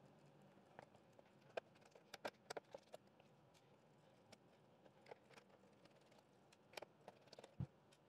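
Near silence with about a dozen faint, short clicks and taps in two clusters, from a small screwdriver working the screws that hold the robot vacuum's main board.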